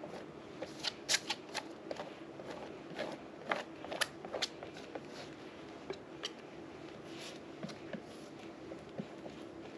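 Palette knife scraping and dabbing thick white texture paste across a canvas: irregular short scrapes and clicks, over a steady low hum.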